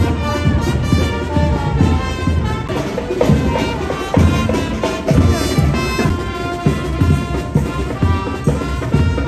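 Music with a steady beat and a melody.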